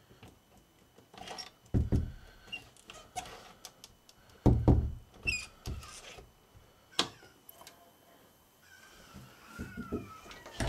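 Interior door being forced: its lever handle worked and clicking, and the door thumping against its frame several times, the loudest thumps about two and four and a half seconds in, as it stays shut.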